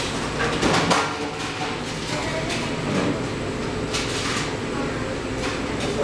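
Cafe ambience: a steady low hum under a murmur of voices, with a few clinks and knocks scattered through.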